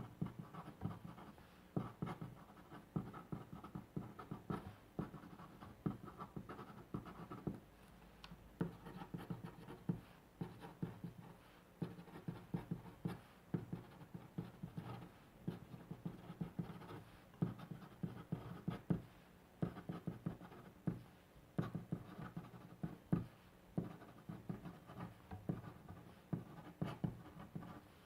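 A pen writing on paper by hand: quick clusters of short scratching strokes with brief pauses between them.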